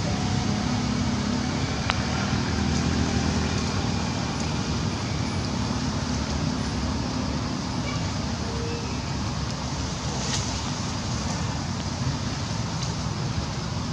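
Wind blowing on the microphone outdoors: a steady, unbroken low noise with hiss above it.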